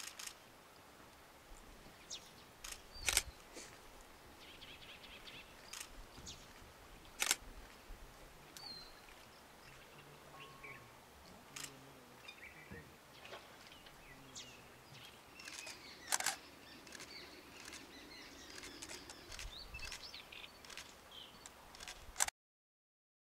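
Faint outdoor ambience with scattered small bird chirps and a few sharp clicks, the loudest about three, seven and sixteen seconds in. The sound drops out abruptly just before the end.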